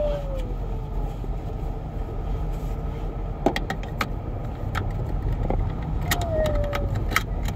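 Peugeot 307 1.6 rolling slowly with road rumble, and a whistle that falls in pitch at the start and again about six seconds in, with scattered sharp scraping clicks between. The car is being driven with the accessory drive belt removed, and the noise is still there.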